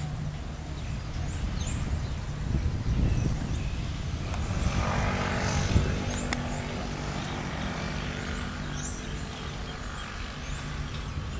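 Steady low outdoor rumble; a motor-like hum swells about four seconds in and fades near the end, with faint short high chirps scattered throughout.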